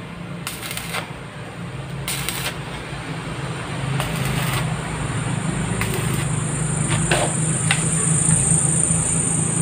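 Stick (arc) welding the guide wheel onto a steel sliding gate's frame: the electrode crackles in several short runs of about half a second, over a steady low hum.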